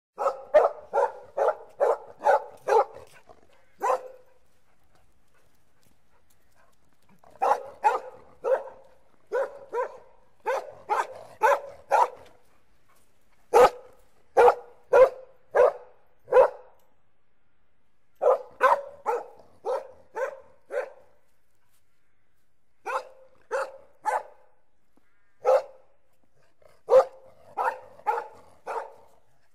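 A dog barking angrily in quick runs of several sharp barks, with short pauses between the runs.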